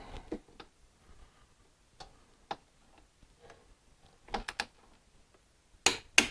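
Sharp metallic clicks of hand tools on the front fork bolts of a motorcycle, spaced out at first and then a quick group of three and two louder clicks near the end.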